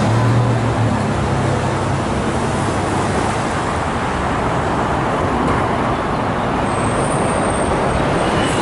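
Steady road traffic noise from passing cars, with a low engine hum in the first two seconds.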